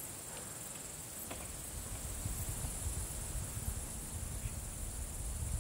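Crickets chirping in a steady high-pitched chorus, with a low rumble underneath that grows after the first second or so.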